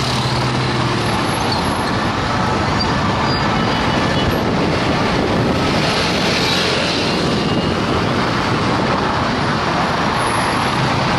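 Steady noise of dense, slow-moving city traffic: many car, van and bus engines and tyres in a jam.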